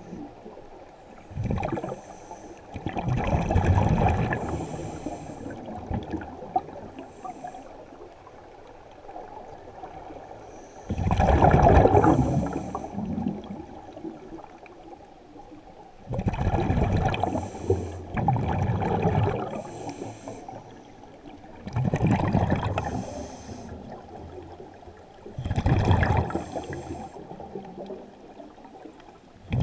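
A scuba diver breathing underwater through a regulator: loud rushes of hiss and bubbling breaths that come every few seconds, with quieter water noise between them.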